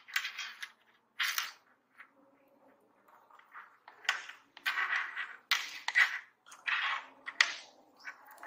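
Metal crocodile clips on test leads clicking and clinking as they are handled against each other and the tabletop, in a string of short, uneven bursts, most of them in the second half.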